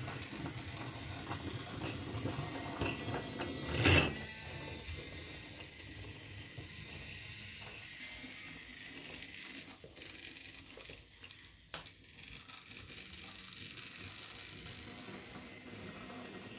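Small toy-train mechanism clicking and whirring, with one sharp knock about four seconds in, then quieter scattered clicks.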